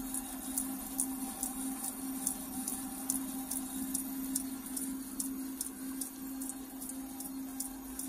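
Metal lathe running slowly: a steady hum with a light, regular tick about two and a half times a second.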